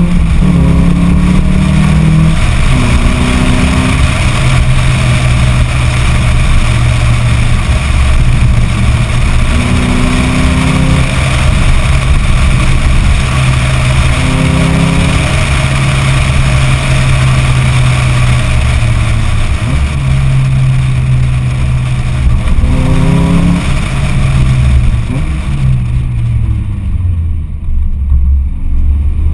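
Lotus Elise S four-cylinder engine with a sport exhaust, heard from outside the car: it pulls up in pitch and drops back at gear changes, holds a steady cruise for a long stretch, then eases off with a falling pitch near the end before picking up again. Wind rush over the side-mounted microphone runs underneath.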